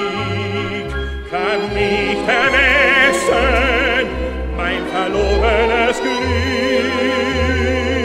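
Operetta music from an orchestra: a melody line with wide vibrato over a bass that moves from note to note.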